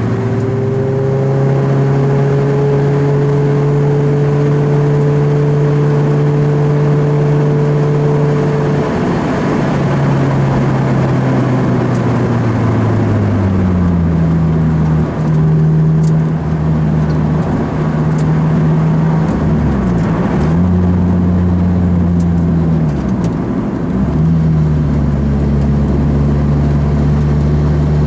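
Lotus Elise 111R's 1.8-litre four-cylinder engine at road speed, heard inside the car over tyre and wind noise. The note climbs slowly, falls off as the revs drop about ten seconds in, and dips briefly twice in the second half before settling.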